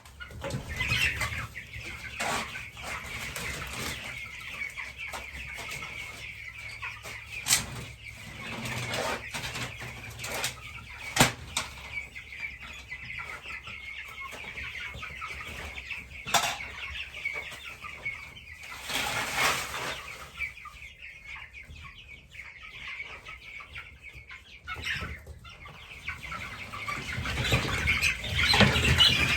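A flock of young Cornish Cross broiler chickens peeping and clucking steadily, with bursts of wing flapping as the birds scatter. A few sharp knocks break in now and then, and the commotion grows louder near the end.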